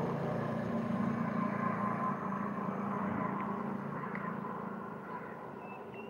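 A steady rumbling noise with a faint hum in it, slowly fading away over several seconds.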